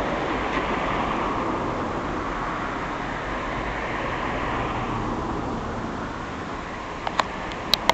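Steady rushing outdoor background noise, with a few sharp clicks near the end.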